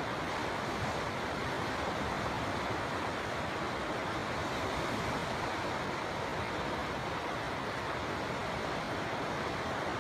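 River water flowing, a steady unbroken rushing.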